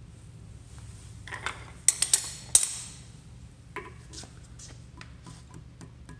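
Metal clinking and knocking as the rear main bearing cap of a Jaguar XK six, its rope seal half fitted, is handled and set over the steel rope-seal sizing tool on the engine block. A few sharp clanks come in quick succession about two seconds in, followed by lighter clicks.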